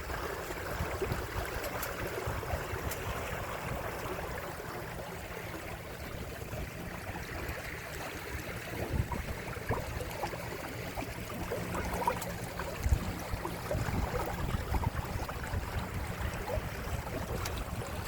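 Water rushing and splashing along the hulls of a Windrider 17 trimaran under sail, with a faint low steady hum underneath.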